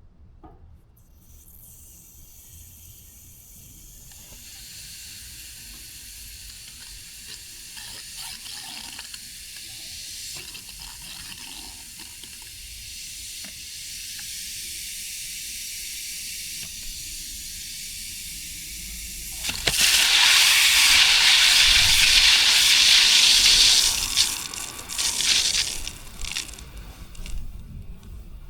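Water and air hissing through a newly installed irrigation valve and zone line as it is opened with the flow turned down. The hiss builds slowly, then turns loud for about four seconds before dropping back in uneven spurts.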